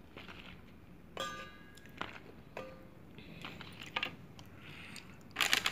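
Fresh flat bean pods being handled and shifted on a plate: irregular crisp rustles and crunches with a few light clinks, the loudest cluster near the end.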